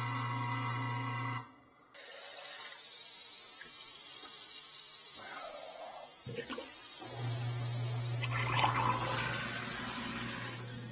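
Kitchen garbage disposal running with a steady motor hum, now turning freely after being unjammed. It is switched off about a second and a half in, tap water runs into the sink, and the disposal is switched on again about 7 seconds in and runs with the water flowing.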